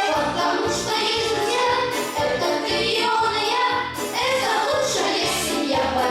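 Music: a song with a singing voice over instrumental backing with a steady low beat.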